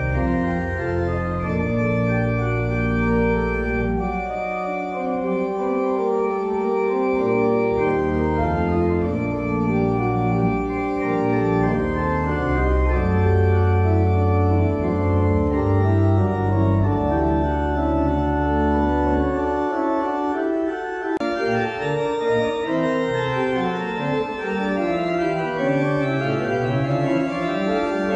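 Pipe organ playing sustained full chords over deep pedal notes. About two-thirds of the way through there is a sudden change to a lighter passage of moving lines, and the deep pedal drops out.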